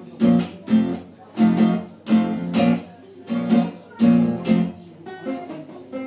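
Acoustic guitar strummed in a tango rhythm: short, accented chords about two a second, often in pairs, as the instrumental introduction to a song.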